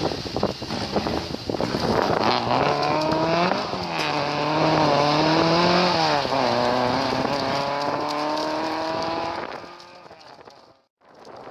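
Rally car engine accelerating hard away through the gears, its pitch climbing and dropping back twice at the gear changes, then fading into the distance.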